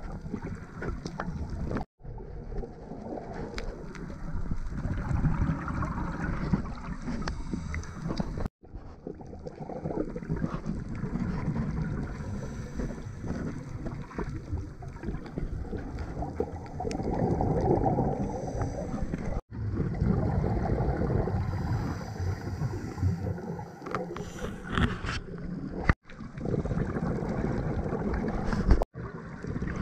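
Muffled underwater noise picked up through a camera housing: a scuba diver's regulator breathing, with swells of exhaled bubbles lasting a second or two. The sound drops out abruptly for an instant several times.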